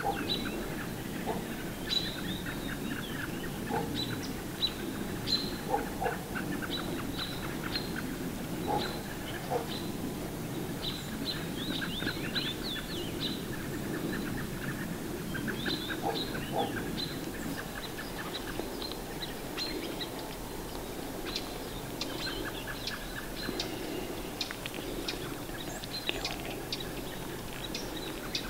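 Small songbirds chirping: many short, high calls scattered irregularly throughout, over a steady low background noise.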